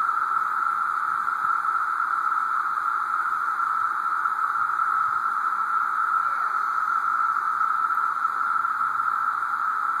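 Dense chorus of Brood II periodical cicadas: a steady, unbroken drone of many insects calling at once, holding one pitch throughout.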